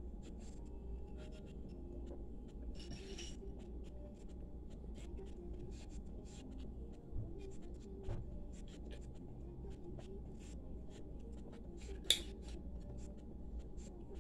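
Faint, irregular small clicks and mouth sounds of a person drinking from a glass tumbler, with a short breathy rush about three seconds in and one sharp tap near the end.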